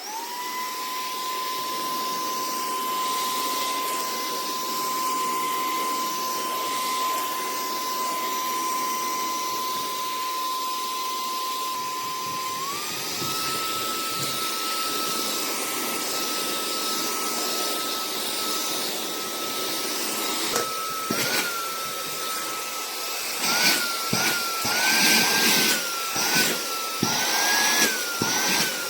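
EBOSSOM cordless handheld vacuum cleaner switching on and running with a steady high motor whine, which steps up to a higher pitch about halfway through. In the last third its pitch dips and recovers repeatedly, with irregular clicks and rattles.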